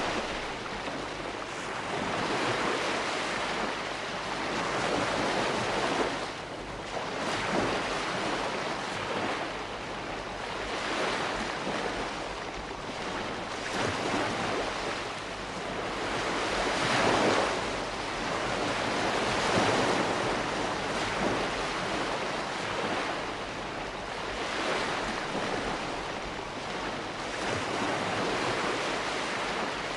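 Calm sea washing ashore: small waves breaking and receding in a continuous hiss that swells and ebbs every few seconds.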